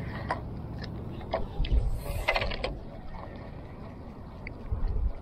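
Spinning reel and rod being worked to retrieve a topwater lure: irregular short mechanical clicks, a quick cluster of them about two seconds in, with a couple of low rumbles.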